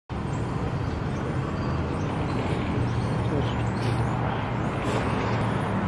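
Steady street traffic noise with a low, even rumble and no single standout event.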